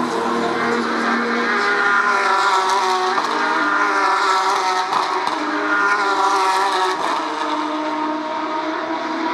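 Porsche 911 GT3 Cup race cars' flat-six engines running at racing revs, several cars overlapping, with pitch jumps from gear changes about three, five and seven seconds in.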